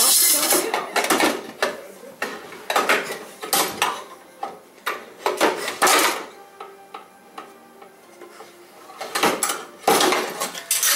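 Metal grilling tools clattering and clinking together as they are rummaged through and pulled out of a drawer. The clatter comes in several bursts, with a lull in the middle.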